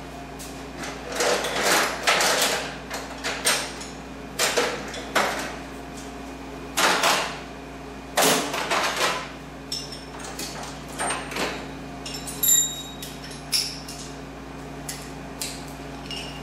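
Hammer driving a punch against a round slotted nut on the mini metal lathe to knock it loose instead of using a spanner wrench. About ten uneven metallic blows over the first nine seconds, then lighter metal clinks with a faint high ring.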